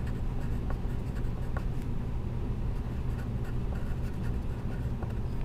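Hand writing on a paper handout: scattered short scratches of the pen tip as the words are written out, over a steady low hum.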